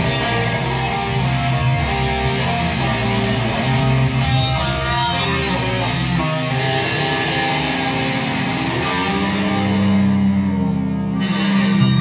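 Live band music led by an electric guitar through effects pedals, played loud. About six seconds in the deep bass drops out, leaving held notes that bend up and down in pitch.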